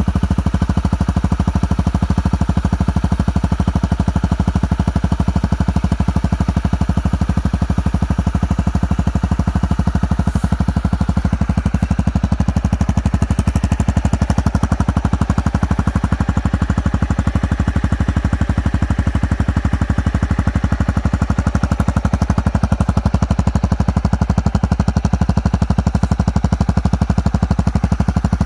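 Honda CRF250M's single-cylinder four-stroke engine idling steadily, its exhaust giving a fast, even chugging at an unchanging pitch.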